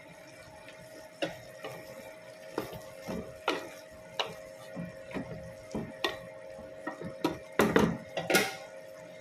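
A wooden spatula stirring okra and pork in a metal cooking pot: irregular scrapes and knocks against the pot, the loudest near the end, over a steady hum.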